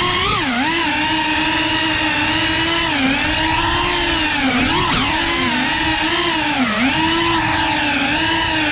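FPV quadcopter's motors running at a steady pitch that dips and climbs back several times as the throttle is eased off and opened again.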